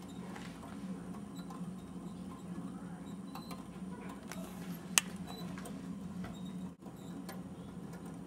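Kinetico 3-Man Clock Junior kinetic clock running: a steady low hum with scattered light ticks and clicks, and one sharp click about five seconds in.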